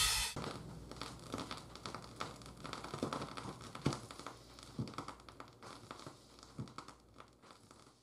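Vinyl record surface noise: fine crackle and scattered clicks from a stylus riding the groove, with a louder pop about once a second and a low steady hum, fading out near the end. The closing music cuts off just as it begins.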